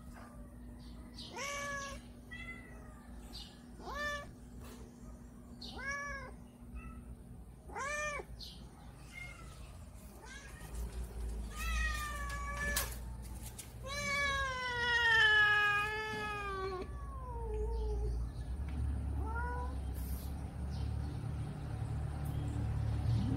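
Hungry tabby cats meowing for food: short rising-and-falling meows about every two seconds, then one long, drawn-out meow that slides down in pitch, and a last short meow after it.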